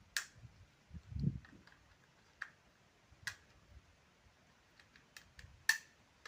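Scattered small clicks and taps as a screwdriver and metal parts of an ATM cash dispenser's push plate assembly are handled while a spring is hooked into place, with a soft thump about a second in and the loudest click near the end.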